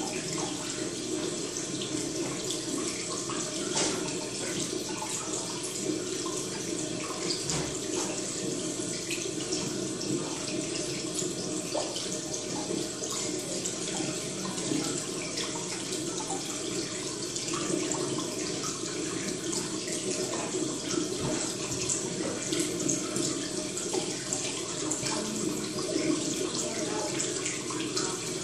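Steady running water, a continuous rushing with no break.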